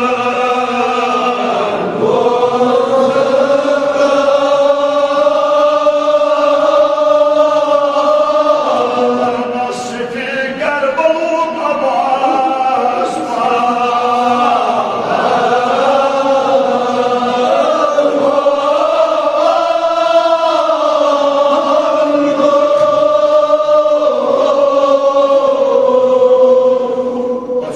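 Kashmiri marsiya, a Shia mourning lament, chanted by male voices in long, drawn-out held notes that slowly rise and fall, with a short break about ten seconds in.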